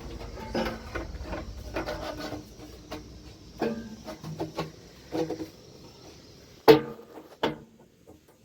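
Irregular clatter and knocks of hard objects being handled, with the sharpest knock coming near the end.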